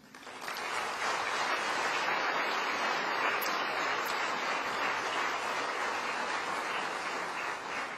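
Large audience applauding: the clapping swells within the first second, holds steady, and dies away near the end.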